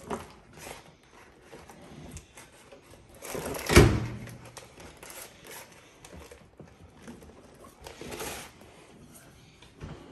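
Paper microwave popcorn bag being handled and rustling, with a loud thump about four seconds in and another rustle near eight seconds.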